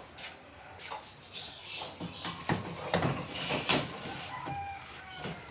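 Irregular knocks and clatters of plywood and tools being handled, busiest in the middle, with a short pitched call near the end; the circular saw is not running.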